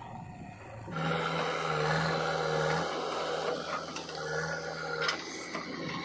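Diesel engine of a JCB backhoe loader running at work, with a steady low hum. About a second in the sound jumps louder and brighter, and a short knock comes about five seconds in.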